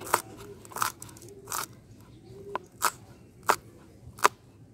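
Short, sharp taps of a kitchen utensil on a hard surface during food preparation, coming about every 0.7 seconds.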